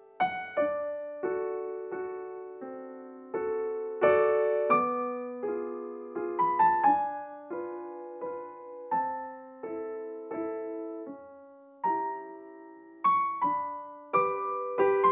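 Slow background piano music: single notes and chords struck one after another and left to fade.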